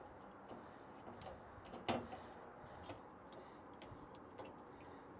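Faint metal clicks and ticks from a hex-bit screwdriver turning Allen bolts into a steel bracket plate, with one louder click about two seconds in.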